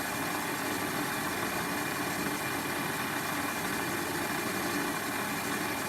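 Warco metal lathe running steadily, its motor and drive giving an even hum, while a turning cut is hand-fed across an off-centre workpiece.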